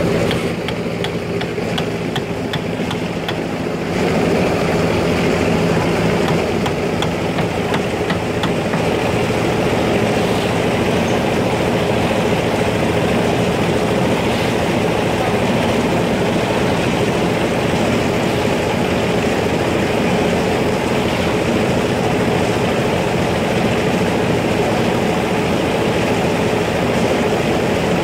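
Hyundai 220LC crawler excavator's diesel engine running steadily as the machine digs earth with its bucket. The engine is a little quieter for the first few seconds, then louder from about four seconds in.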